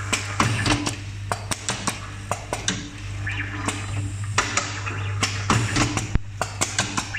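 Automatic tube-terminal stripping, twisting and crimping machine at work: its air-driven cylinders snap and clack several times a second in an irregular rhythm, with short hisses of air, over a steady low hum from the vibratory bowl feeder.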